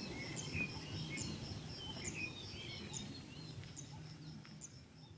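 Small birds chirping in short, repeated calls, with a high, evenly pulsing note running under them and a low rumble of background noise; it all fades away near the end.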